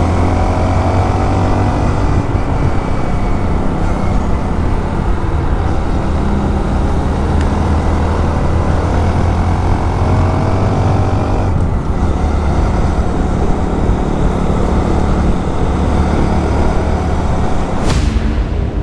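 Motorcycle engine running under way with wind and road noise. Its pitch rises twice as it pulls through the revs, and there is a short rushing burst near the end.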